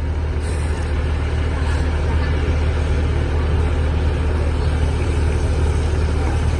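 Heavy diesel engine running steadily under load, a low drone that grows slowly louder.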